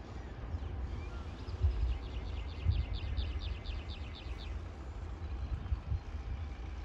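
A bird trilling: a run of quick repeated high notes, about five a second, lasting some three seconds, over a low outdoor rumble with a few soft thumps.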